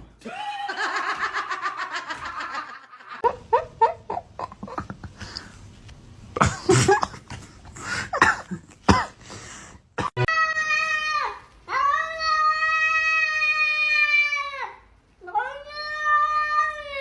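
A cat yowling in drawn-out meows: a wavering call near the start, then three long, steady calls in the last seven seconds, the middle one about three seconds long. Between them, a stretch of clicks and rustling.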